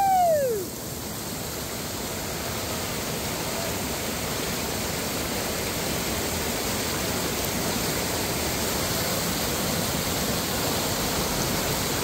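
Whitewater rapids of the Ocoee River: a steady, even rush of churning water.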